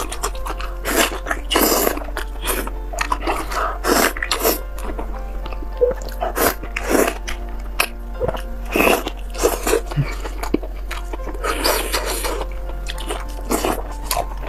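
Close-miked wet eating sounds: irregular bites, chewing and squelches as soft lamb stomach stuffed with brain is torn apart by hand and eaten, over faint background music.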